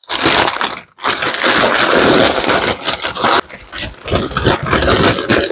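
Stiff wrapping paper, white freezer paper and brown butcher paper, crinkling and tearing as a paper-wrapped package is pulled open by hand. The rustling is loud, with a brief pause about a second in and another just past the middle.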